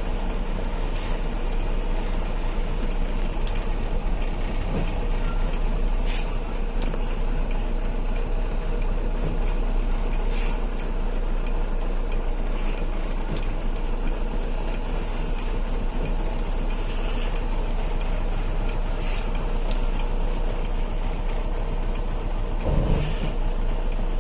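Heavy truck on the road: steady engine and road noise, with a short thump near the end.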